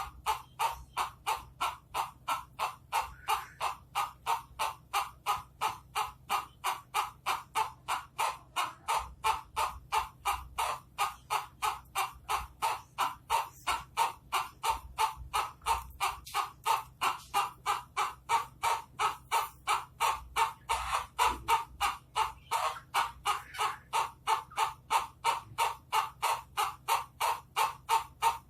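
Ayam ketawa (laughing chicken) rooster crowing in its rapid, staccato laughing style: short call notes repeated about three times a second in one long unbroken series.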